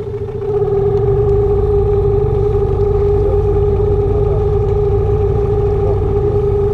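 Hidea 9.9 outboard motor running steadily at low throttle, a little louder from about half a second in. The new motor is being run in, so it is kept slow.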